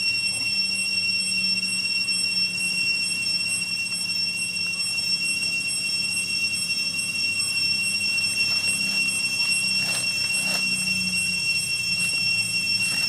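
Cicadas singing in one steady, high-pitched whine, with a low hum underneath. A few faint clicks come about ten seconds in.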